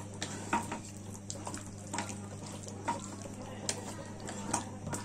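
Wooden slotted spatula stirring thick, wet chicken-and-egg masala in a nonstick frying pan: irregular squelching scrapes and taps a few times a second. A steady low hum runs underneath.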